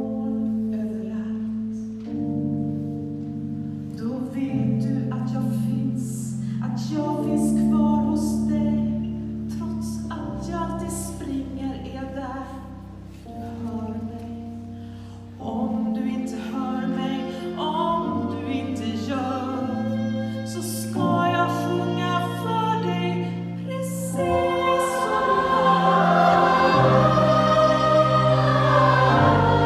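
A choir singing a slow Swedish song over held instrumental chords, the sound growing fuller and louder near the end.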